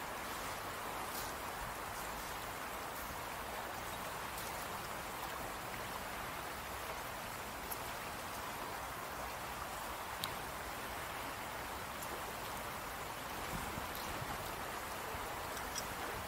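Fast-flowing river running past a sandy bank: a steady rush of water, with a few faint ticks and a sharper click about ten seconds in.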